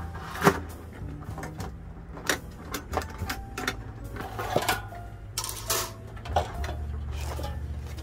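Metal latches and handle of a Streetbag briefcase-style steel fire pit clicking and clacking as they are unfastened, then the case knocking as it is swung open. The clicks come irregularly throughout, the sharpest about half a second in.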